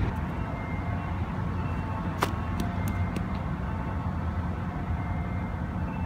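Steady low outdoor background rumble, with one sharp click a little past two seconds in and a few fainter clicks just after.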